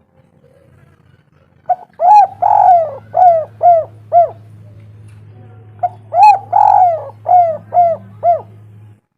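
Spotted dove cooing in two phrases of about five or six arched coos each, the second coo of each phrase longer and rolled. This is the male's territorial call.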